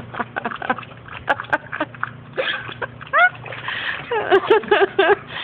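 Water splashing and dripping around a Boston Terrier sitting in a small plastic water tub, with many short splashy clicks in the first two seconds. A short rising squeal comes about three seconds in, and a few brief voice-like sounds near the end.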